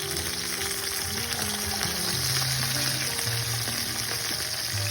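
Steady rushing hiss of stream water with background music playing over it, its low notes changing every second or so.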